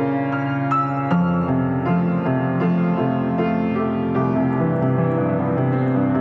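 Piano played slowly: held chords with new notes struck about every half second over a low bass line.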